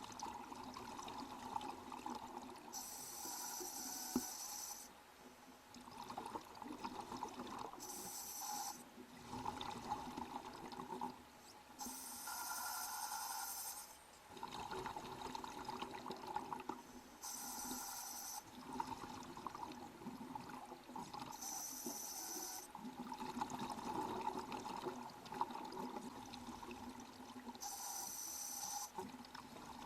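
Water sounds: a steady murmur broken every four to five seconds by a short burst of high hissing bubbling.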